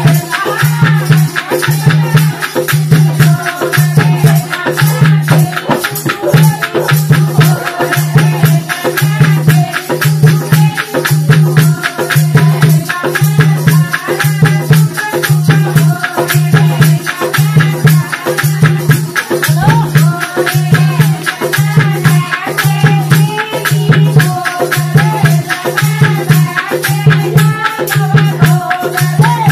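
Women singing a Haryanvi folk song in chorus, accompanied by a dholak drum beating a steady low beat about once a second and fast rattling clicks throughout.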